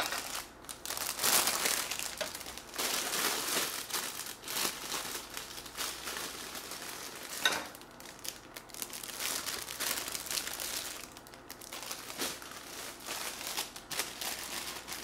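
Crinkly plastic bag of bean sprouts crackling and rustling as it is handled, in irregular bursts, with a sharp click at the very start and another about seven and a half seconds in.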